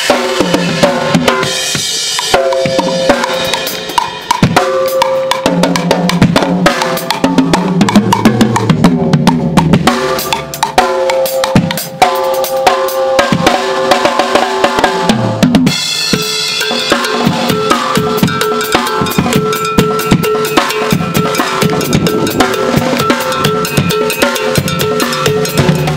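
Acoustic drum kit being played: a fast run of bass drum, snare, tom and cymbal strikes, with the drums ringing between hits.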